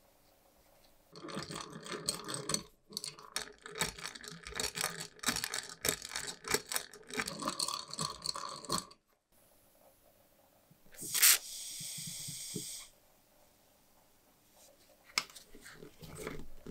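Rusty Boston hand-crank pencil sharpener being worked by hand, its gear and cutter mechanism giving a dense, uneven clicking and scraping rattle for several seconds. After a pause comes a sharp click and about a second and a half of buzzing, then a few scattered clicks.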